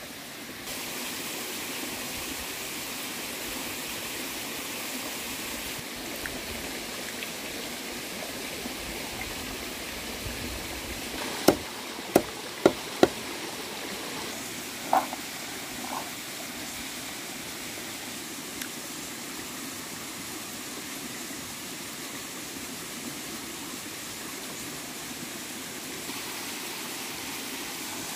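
Steady rush of a small forest stream, with four sharp knocks about halfway through, a machete chopping into wood.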